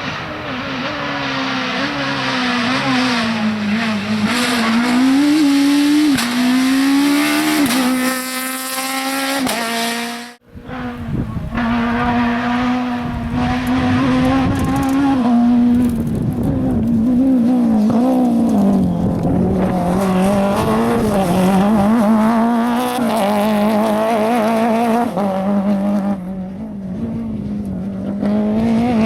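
Citroën AX Kit Car rally engines driven hard, the revs climbing and dropping over and over as the cars accelerate, change gear and brake. The sound cuts out for a moment about ten seconds in, then the engine noise carries on.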